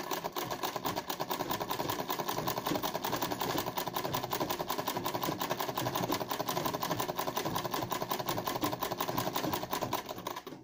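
Domestic straight-stitch sewing machine running fast and steadily in free-motion embroidery, a rapid even run of needle strokes, stopping near the end. It is stitching the centre of a flower densely, near the end of that step.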